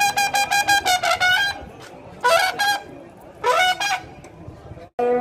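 Trumpet in a Muharram procession band, playing a quick run of short repeated notes and then two short blasts about a second apart, each sliding up into its pitch.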